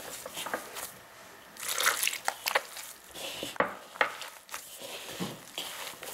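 A hand squeezing and kneading damp, crumbly corn masa moistened with chicken broth: irregular wet squishing and crumbling, with a few sharper squelches, busiest about two seconds in and again about four seconds in.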